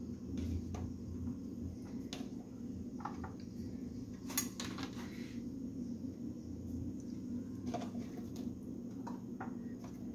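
Light, scattered clicks and taps of kitchenware being handled on a worktop, with one sharper click about four seconds in, over a steady low hum.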